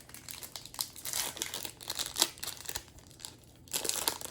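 Foil wrapper of a Topps Chrome baseball card pack being torn open and crinkled by hand: irregular crackling and crinkling, with a short lull about three seconds in.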